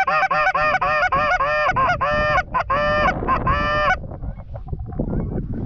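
Goose call blown in a fast run of loud honking clucks, about four a second, imitating Canada geese to call birds in over the decoys. The calling stops about four seconds in.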